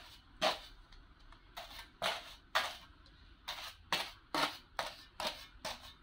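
Steel mason's trowel scraping and pressing damp cement and sand mix around a plastic bowl mould, in short strokes roughly two a second.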